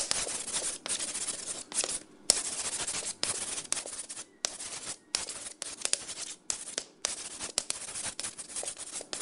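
Chalk scratching across a blackboard in a run of quick writing strokes, broken by short pauses between words.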